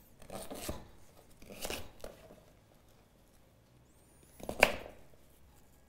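Paring knife dicing raw sweet potato on a plastic cutting board: three separate cuts, the last and loudest near the end.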